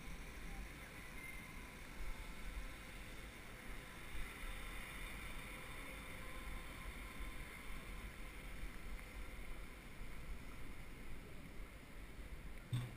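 Steady low wind noise on a cyclist's head-mounted camera microphone while riding, with a single low thump near the end.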